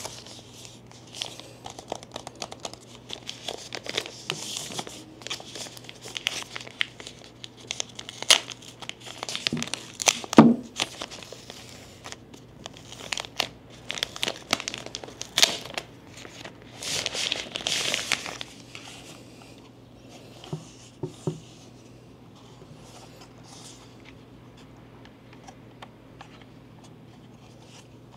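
Packaging being handled and opened by hand: irregular crinkling, tearing and small clicks and knocks, in bursts. The handling stops about two-thirds of the way through, leaving a faint low hum.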